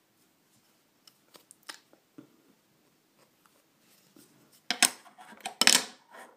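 A bare wooden fingerboard deck being handled on a wooden tabletop. There are a few faint clicks, then, near the end, two short loud scraping noises about a second apart as the deck is pushed against the table.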